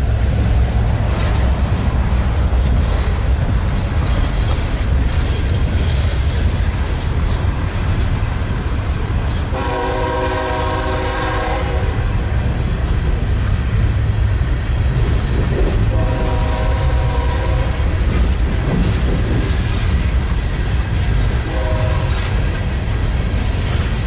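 Freight train of open hopper cars rolling past, a steady heavy rumble of wheels on rail with clacks at the rail joints. About ten seconds in, a locomotive's chord horn sounds two long blasts and then a short one, the pattern of a grade-crossing signal.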